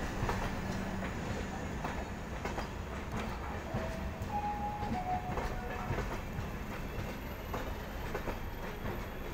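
Passenger train coaches rolling past close by, the wheels clacking steadily over the rail joints.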